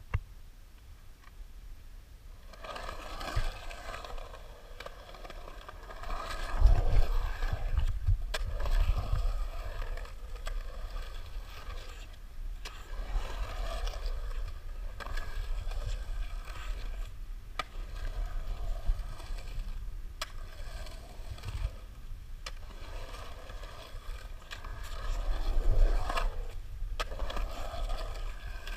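Skateboard wheels rolling over the concrete of a skate bowl, the rolling sound swelling and fading again and again as the rider carves up and down the walls, with a few sharp clacks of the board. A heavy low rumble is loudest about seven seconds in and again near the end.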